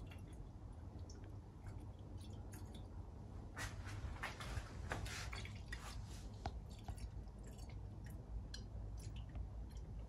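Antifreeze coolant poured from a plastic jug into a car's coolant expansion tank while topping it up: faint trickling with small drips and splashes, busiest about four to five and a half seconds in.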